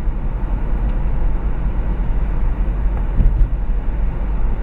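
Car driving at speed, heard from inside the cabin: a steady low rumble of engine and road with tyre and wind hiss over it.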